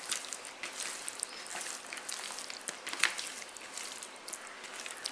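Hand mixing fish slices in a thick, oily masala marinade in a plastic bowl: wet squelching and small sticky clicks, with one sharper click about three seconds in.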